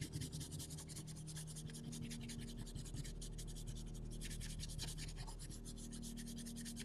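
Brown wax crayon scrubbed across paper in quick, rapid back-and-forth strokes, shading with the side of the crayon; faint and steady.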